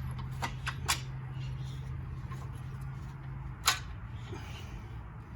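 A few sharp metal clicks and knocks as the replacement front wheel hub assembly and its bolt are worked into place, the loudest about three and a half seconds in. Under them is a steady low hum that stops at about the same moment.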